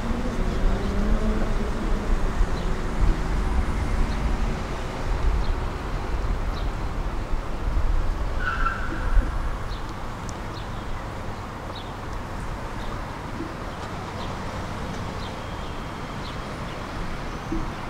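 Tram running with a low rumble that eases off after about ten seconds into a quieter steady noise.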